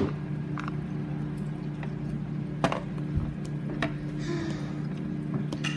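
Plastic toy figures being handled and set down on a glass tabletop: a few sharp clicks over a steady low hum, with a brief rustle about four seconds in.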